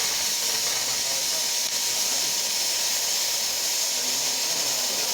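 Cutting torch on a CNC cutting table burning through metal plate: a steady, unbroken hiss.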